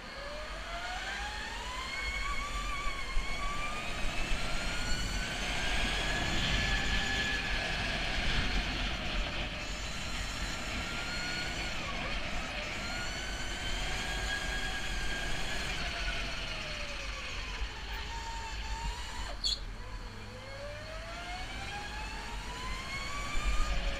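Electric go-kart's motor whining from the driver's seat, rising in pitch as it speeds up and falling as it slows for the corners, several times over, with a steady low rumble of wind and tyres underneath.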